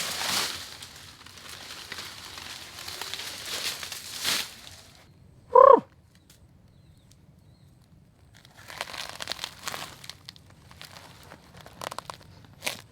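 Bursts of rustling, crunching noise, with one short, loud animal call that rises and falls about five and a half seconds in.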